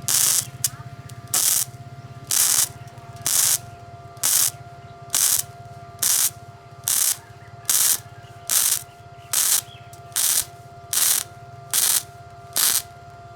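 Gasless flux-cored MIG welder's arc crackling in short, regular bursts, about one every second, over a steady low hum. This is the arc sound of a well-set amperage.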